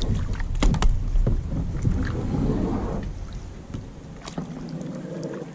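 Kayak paddle knocking a few times against the rocks and hull in the first second as the kayak is pushed off the bank, followed by a low rumble that fades out after about four seconds.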